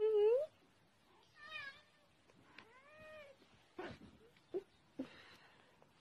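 Domestic tabby cat meowing: a loud, short rising meow at the start, then a couple more calls, the longest rising and falling about three seconds in. A few light knocks follow near the end.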